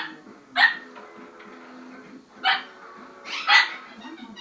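Severe macaw imitating a dog's bark: short, sharp barks, about four, unevenly spaced, the last two in quick succession.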